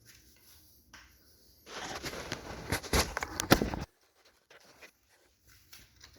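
A burst of rustling noise lasting about two seconds, with two sharp knocks in it, the second the loudest.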